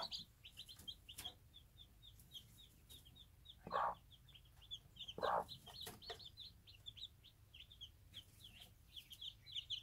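Newly hatched chicks peeping nonstop, a quick run of short, high peeps, with the broody mother hen giving a few low clucks, the loudest about four and five seconds in.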